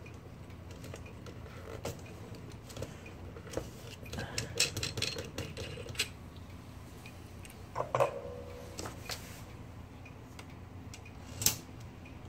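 Scattered light metallic clicks and clinks of old typewriter parts being handled during disassembly, busiest about four to six seconds in, with a short ringing clink about eight seconds in, over a steady low hum.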